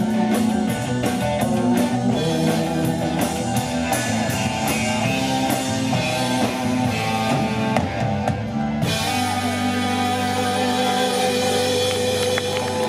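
Live rock band with electric guitars, drum kit, keyboard and fiddle playing, with singing. About nine seconds in, the drum beat stops on a cymbal crash and the band holds a long final chord.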